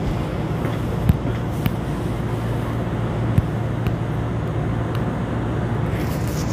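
Steady interior noise of an electric commuter train: a constant low hum with a few sharp clicks.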